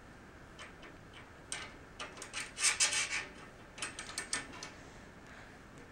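Small metal screws scraping and clicking against a metal bed-frame rail as a toddler handles them and the rail, in short, irregular bursts, busiest a couple of seconds in.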